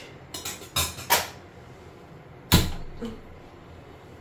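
A few sharp knocks and clatters of kitchen pots and utensils being handled, in quick succession about a second in, then a single loudest bang about two and a half seconds in and a lighter knock just after.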